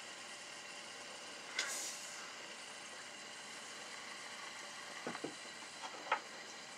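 Faint steady hiss with handling noise from a handheld camera: a brief rustle about a second and a half in, and a few small clicks near the end.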